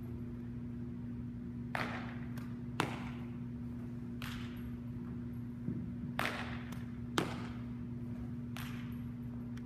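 Baseball throwing and fielding drill on artificial turf: four brief swishes of quick footwork and arm action, and two sharp smacks of the baseball, over a steady low hum.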